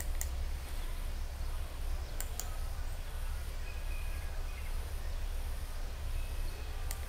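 Steady low electrical hum and faint hiss of microphone background noise, with a few short faint clicks.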